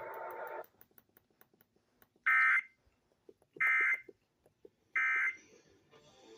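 Emergency Alert System end-of-message data bursts: three short, loud bursts of warbling digital tones (the 'NNNN' code), about 1.3 s apart, starting about two seconds in, closing the alert broadcast over the radio.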